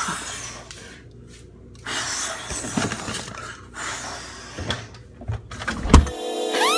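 Close-up rustling and bumping of movement right at the microphone, with a few knocks and a heavy thump about six seconds in. Just after it, a wailing, siren-like sound effect with music cuts in.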